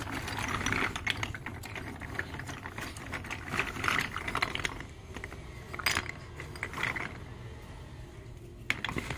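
Small baked clay pots, saucers and cups clinking and rattling against each other as a hand rummages through a pile of them: a dense run of small clicks, with louder clusters about four, six and seven seconds in.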